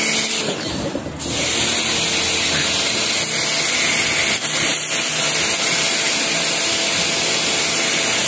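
Pressure washer running, its water jet hitting a wet tiled floor with a steady hiss over the hum of its pump motor. The jet is blasting moss and grime off the tiles, and the sound dips briefly about a second in.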